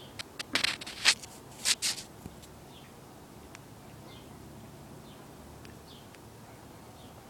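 A few short, loud rustles and clicks in the first two seconds. Then a small bird repeats a short falling chirp about once a second.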